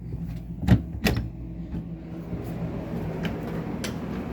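Two sharp knocks about a second in, then a few fainter clicks, over a steady low hum.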